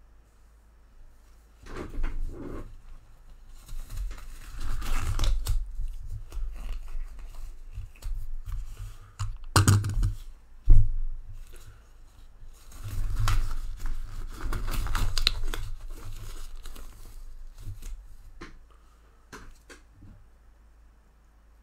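Crinkling, stretching and rubbing of black gloves being pulled onto the hands, in several bouts, with handling knocks on the table and one sharp knock about halfway through.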